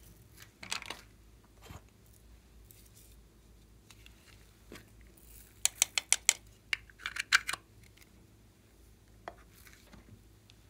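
Hands working a plastic container over a glass bowl of slime ingredients: a quick run of sharp clicks about halfway through, then a short crackling cluster, with a brief rustle about a second in.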